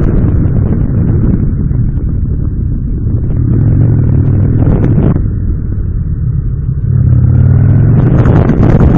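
Motorcycle engine running under way, its note climbing twice as the bike accelerates, with wind rushing over the helmet microphone, louder near the end.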